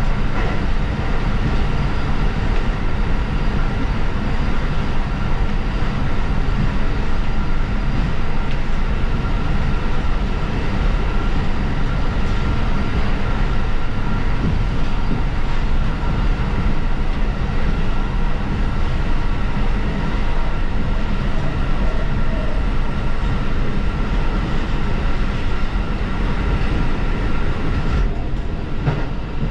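Diesel railcar running along the line: a steady engine drone and wheel-on-rail rolling noise with a faint steady whine. The higher hiss eases slightly near the end.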